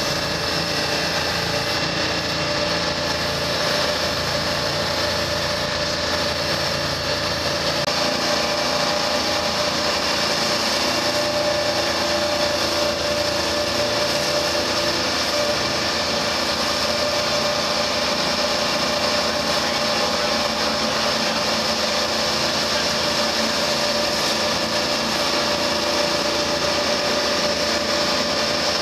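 The diesel engines of a 44 ft motor lifeboat running steadily at cruising speed, a constant mechanical drone with a thin steady whine. Water rushes and splashes along the hull as the boat runs through chop.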